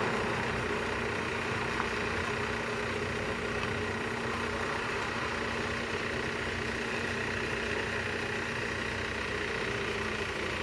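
An engine running steadily, a constant hum with a held tone.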